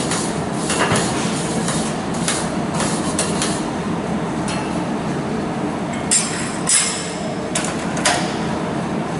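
Irregular sharp knocks and clinks of a hammer on steel, about once or twice a second with a pause in the middle, over a steady noisy background.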